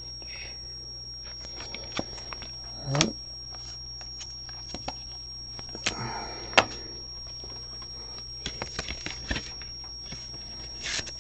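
Scattered light clicks, taps and rustles of trading cards and plastic card holders being handled, over a steady faint hum.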